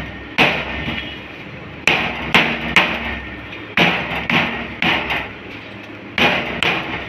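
A folded, fried lachha paratha being beaten with sharp, irregular blows against a hard surface to crush it into flaky shreds. There are about ten knocks, often two or three in quick succession, each with a short ringing tail.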